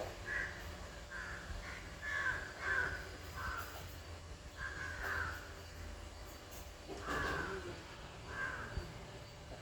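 Crows cawing: a run of short, harsh caws in quick succession, a gap, then a few more single caws.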